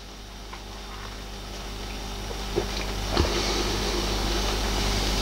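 Quiet room tone: a steady low electrical hum and hiss that slowly grows louder, with a few faint clicks and gulps as beer is drunk from glasses.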